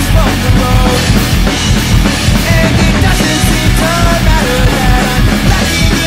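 Acoustic drum kit played at a fast pop-punk beat, with toms and cymbals struck, over a loud pop-punk band recording that it is played along with.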